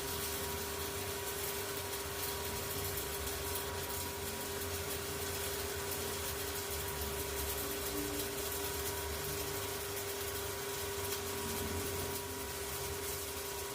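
Stick-welding arc from the larger VAC mini inverter welder burning a 4 mm electrode: a steady crackling hiss, with a steady high whine throughout.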